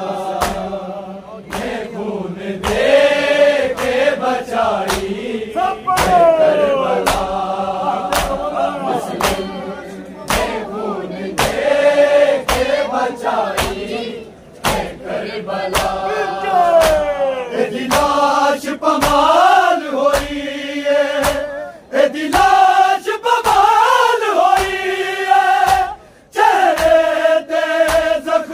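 A crowd of men doing matam, slapping their chests with open hands together about once a second, under men chanting a noha lament with long held and gliding notes.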